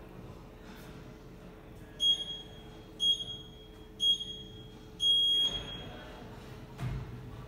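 Digital gym interval timer counting down to the start of a workout: three short high beeps a second apart, then one longer beep that marks the start. A low thump follows near the end.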